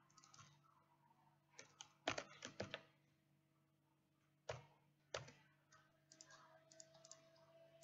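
Computer keyboard keystrokes, faint and sparse: a quick run of about five keys about two seconds in, two single presses a little later, and lighter taps near the end.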